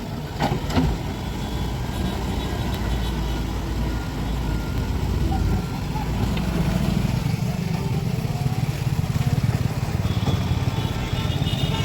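JCB 3DX backhoe loader's four-cylinder diesel engine running steadily while working, with a couple of short knocks in the first second. About six seconds in, the engine note rises and gets a little louder as it revs up under load.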